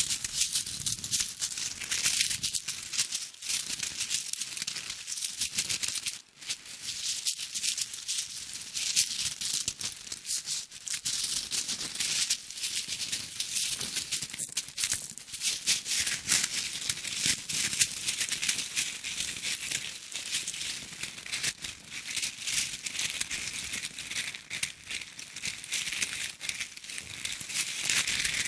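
Designed sound effect of a tiny insect burrowing and rustling: a dense, continuous patter of fine dry crackles and scratches, with a brief pause about six seconds in.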